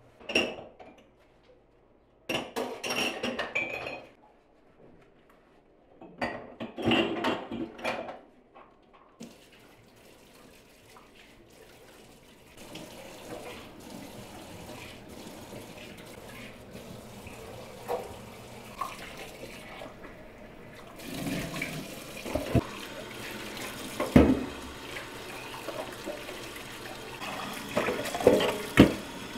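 Dishes being washed by hand at a stainless steel sink. First come a few bursts of scrubbing, then the tap runs steadily as dishes and a glass are rinsed, with occasional clinks and knocks of crockery.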